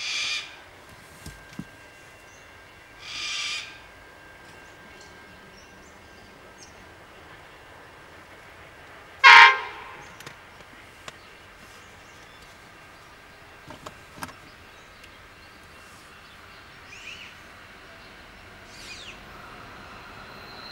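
Freight train's NR class diesel locomotive horn sounding short blasts from far off. The loudest blast comes about nine seconds in, with two shorter, fainter ones at the start and about three seconds in, over a faint steady background, and a few small ticks later.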